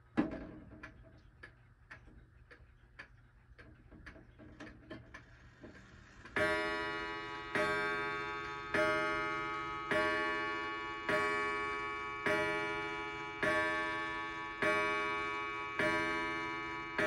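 Antique Seikosha pendulum wall clock: a click as the minute hand is pushed to twelve, then the movement ticking steadily for about six seconds. The clock then strikes twelve, with slow ringing strokes a little over a second apart; about ten sound here, each ringing on until the next.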